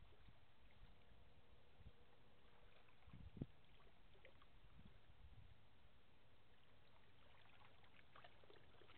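Near silence: faint outdoor ambience, with a couple of soft low thumps about three and a half seconds in.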